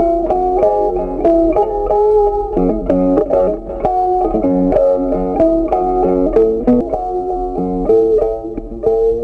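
Background music: a plucked guitar melody, one note after another.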